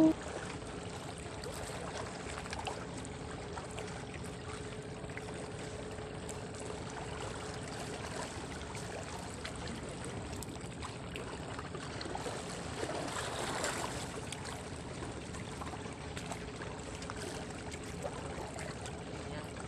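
Small waves lapping and washing against shoreline rocks in a steady gentle wash. A faint steady hum sits underneath.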